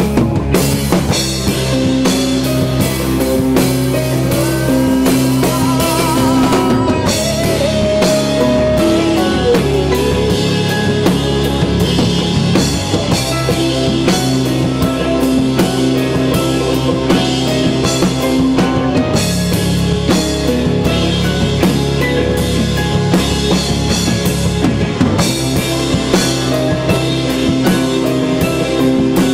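Rock band playing an instrumental passage: drum kit with busy snare and cymbal hits over sustained guitar notes. A note bends and slides about a third of the way in.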